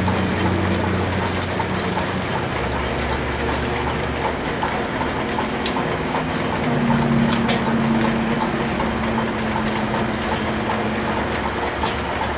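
Belt-driven overhead line shaft and pulleys running steadily, powering an antique Star lathe: a steady low mechanical hum whose pitch shifts a little a couple of times, with faint light ticking.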